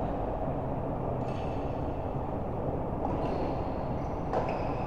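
Steady background noise of a large indoor sports hall, with a few faint high squeaks and a single knock about four seconds in.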